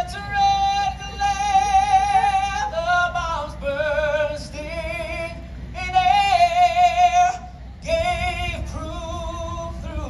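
A woman singing solo, holding long notes with a wavering pitch, with short breaks between phrases.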